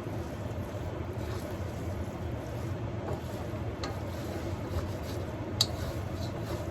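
Utensil stirring pasta and couscous in a pan, with a few light clicks against the pan, the sharpest about five and a half seconds in, over a steady low rumble.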